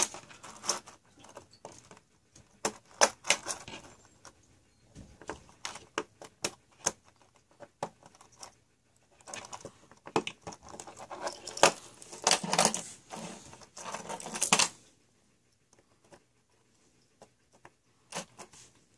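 Small metal clicks, taps and scrapes from a tool working the pins out of a stainless steel watch bracelet to take it off the case. The handling comes in irregular clusters, stops about three quarters of the way through, and a couple of clicks return near the end.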